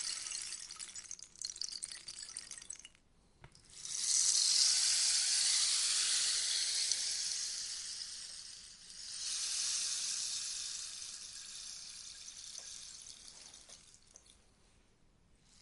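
Rainstick being tipped, its filling trickling down the inside in a rain-like hiss. One pour fades out about three seconds in; a new one starts a second later, swells again midway and slowly tails off to a few scattered ticks near the end.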